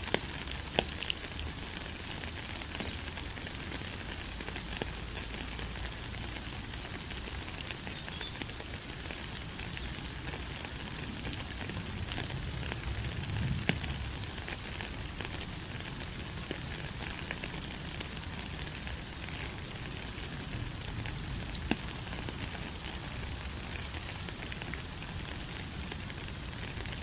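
Steady rain falling, an even hiss with scattered ticking drops. A few short, high chirps come through twice, about a third and halfway through.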